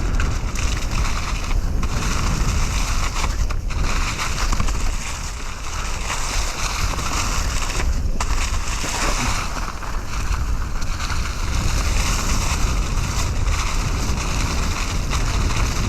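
Mountain bike riding down a trail thick with fallen leaves: steady rush of wind over the microphone, with the tyres crunching and hissing through the leaves.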